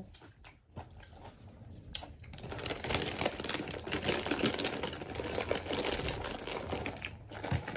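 Crunchy Takis rolled tortilla chips and jalapeño being chewed close to the microphone: sparse crunches at first, then a dense, rapid crackle from about two seconds in.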